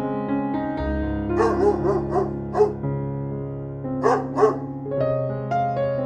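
A dog giving short yipping barks, a quick run of about five, then two more after a short pause, over soft piano background music.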